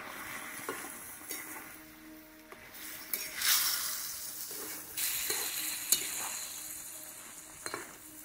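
Fish curry sizzling and bubbling in a metal pan while a spatula stirs it, scraping and clinking against the pan. The sizzle swells in surges as the stirring goes on.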